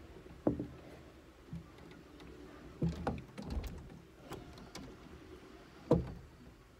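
A handful of dull thumps and knocks, the loudest about half a second in and near the end, with low rumbling and faint rustling between them.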